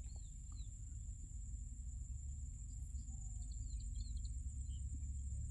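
Quiet background sound with no speech: a steady low hum and a steady high-pitched whine, with a few faint short chirps.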